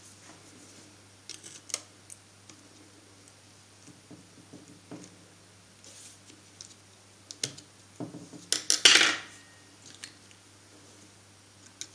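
A small screwdriver clicking and scraping against the brush spring and brush holder of a Bosch GWS660 angle grinder while prying at a worn carbon brush. A few light clicks come early, more about seven seconds in, then a longer scrape near the end, the loudest sound.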